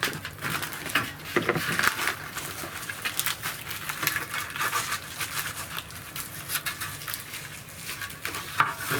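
Old, brittle covering being slowly peeled and torn off a car's rear side trim panel: a steady, irregular crackling and rustling with many small clicks, a little stronger about one and a half seconds in.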